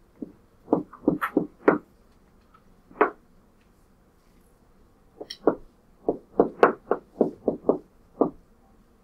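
Stylus tapping against a computer touchscreen while numbers are handwritten. There is a quick cluster of taps about a second in, a single tap around three seconds, and a run of about a dozen taps in the second half.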